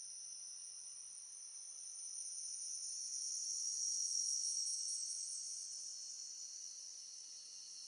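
High-pitched, steady insect-like chirring drone that swells to its loudest about halfway through and then eases off.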